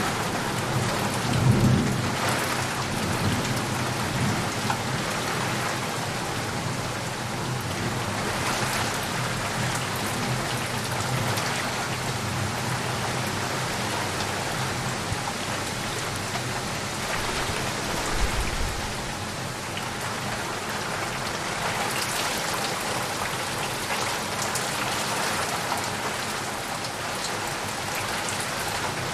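Heavy rain falling steadily on leaves and puddles, with a low rumble of thunder about a second or two in.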